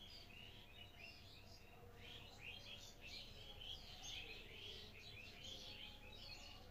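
Faint chirping of many small birds, short overlapping calls going on continuously.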